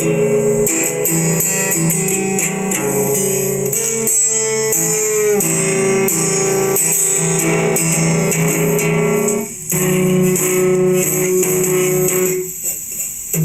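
Instrumental music led by guitar chords, with a short break about nine and a half seconds in and a thinner, quieter passage near the end.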